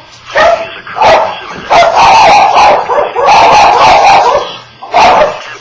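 A dog barking loudly in a run of bursts, a few short ones, then two drawn out to about a second each, then one more short one.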